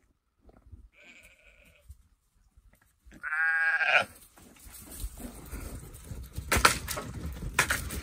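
Lambs bleating: a faint bleat about a second in, then a louder bleat lasting under a second around three seconds in. Rustling and a few sharp knocks follow.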